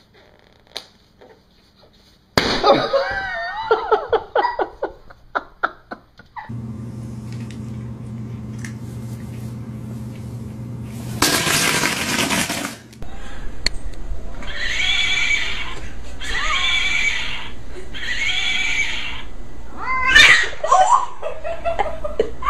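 Cats meowing and yowling in wavering, drawn-out cries, then three separate meow-like calls. A loud burst of noise lasting about two seconds comes in the middle.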